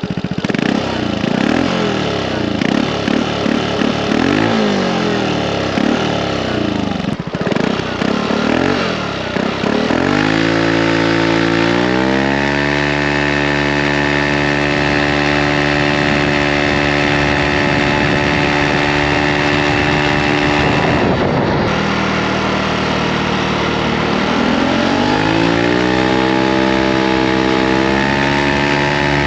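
Aprilia SR GT 125 scooter engine and exhaust. For about the first ten seconds the revs rise and fall again and again. Then the engine note climbs and holds steady, drops off sharply about 21 seconds in, and climbs again to a steady note.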